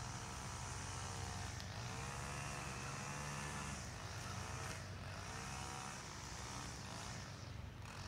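An engine running at low speed under a steady low hum, its pitch rising and settling again several times, as with light revving.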